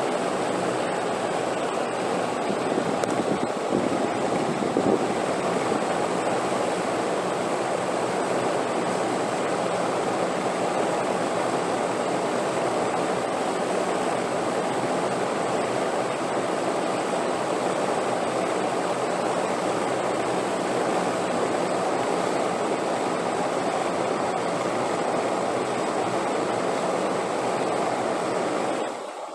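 Steady wind noise, an even rushing with no gusts or breaks, dipping briefly just before the end.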